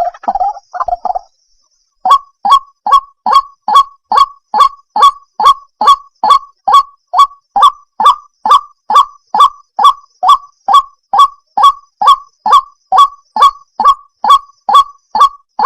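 White-breasted waterhen calling: a few quick notes, a short pause, then a monotonous run of identical short 'kwak' calls, a little over two a second.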